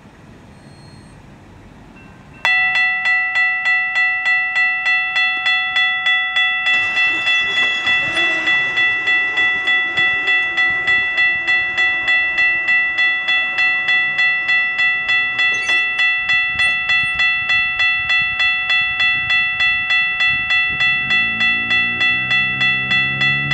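Railroad grade-crossing warning bell starts suddenly a couple of seconds in and rings steadily, about two dings a second, signalling that a train is approaching. Near the end a lower sound rising in pitch comes in under the bell, as of the approaching train.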